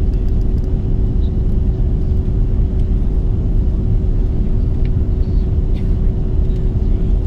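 Cabin noise of an Airbus A330-200 jet airliner on final approach: a steady low rumble of engines and airflow with a constant hum running through it.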